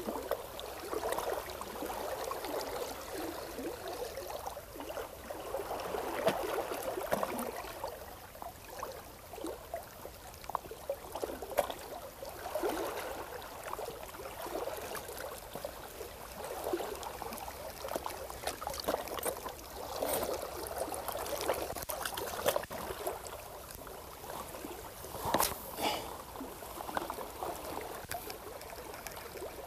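Small waves lapping and trickling against shore rocks, an irregular splashing wash, with a few sharp clicks from the fishing gear being handled.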